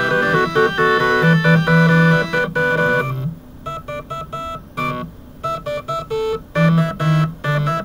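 Several stepper motors driven at musical pitches, playing a tune in buzzy, organ-like tones: a melody over a repeating bass note. About three seconds in the bass and most of the upper parts drop out, leaving sparse single notes, and the full texture returns near the end.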